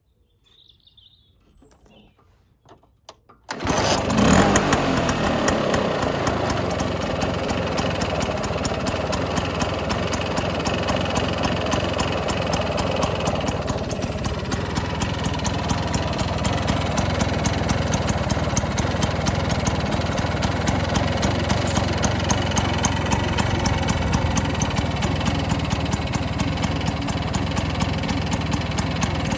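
Vespa P200 two-stroke single-cylinder engine in a 1960 Vespa GS150 frame, catching about three and a half seconds in after a few faint knocks, then idling steadily with a fast, even beat.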